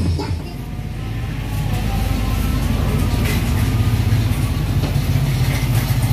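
Music cuts off right at the start, then a steady low rumble with a fast fine pulse builds up over about two seconds and holds.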